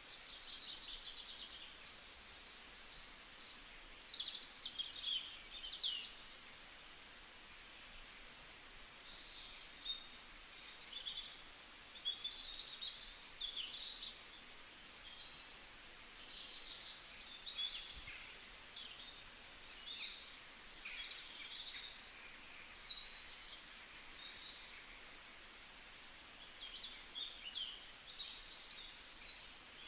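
Small birds chirping and twittering faintly in scattered bursts, over a faint steady hiss.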